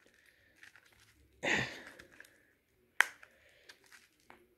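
Small plastic clicks and ticks of fingers working at the battery cover of a BlackBerry Curve 8330 phone, trying to pry it off; one sharp click about three seconds in, with a brief rush of noise a little earlier.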